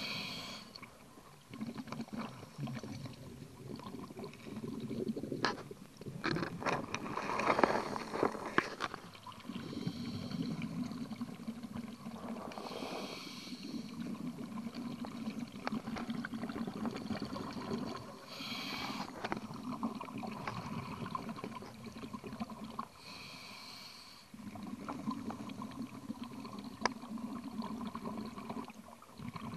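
A diver's scuba regulator heard underwater: a short hiss on each inhale every few seconds, and the rush of exhaled bubbles between them, loudest about six to nine seconds in.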